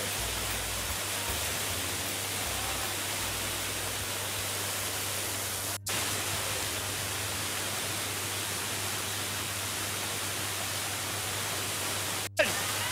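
Steady rushing of water pouring down a rocky waterfall cascade, close to the microphone, cut by a brief dropout twice.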